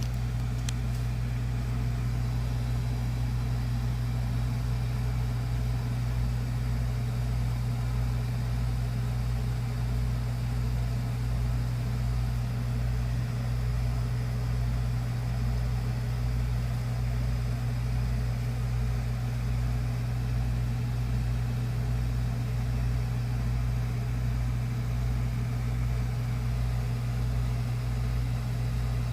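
Steady low machine hum with a slow throb underneath, about one beat a second.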